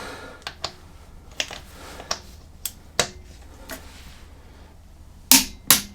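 Click-type torque wrench on a motorcycle rear wheel nut: scattered light clicks as the nut is tightened, then two loud sharp clicks close together near the end as the wrench breaks at its 70 Nm setting, signalling the nut is at torque.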